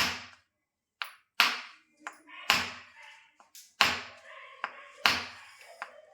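A run of sharp taps, five loud ones roughly a second apart with fainter ones in between, each ringing out briefly.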